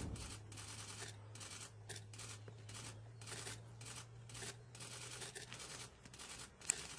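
Faint, irregular rustling and scratching over a low steady hum, which fades out about five and a half seconds in.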